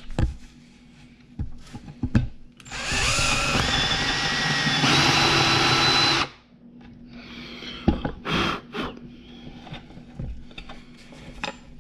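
Handheld power drill boring into wood with a 1-inch Forstner bit in a short burst of about three and a half seconds. Its whine steps up in pitch twice before it stops suddenly. The pass deepens one side of a keyhole-hanger recess to correct a crooked angle. A few handling knocks and clicks follow.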